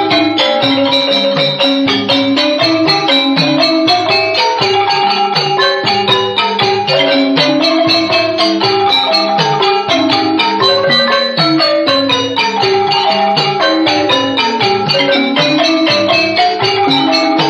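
Khmer pinpeat ensemble music: xylophones (roneat) and gong circles (kong vong) playing a steady stream of fast, dense struck melody notes.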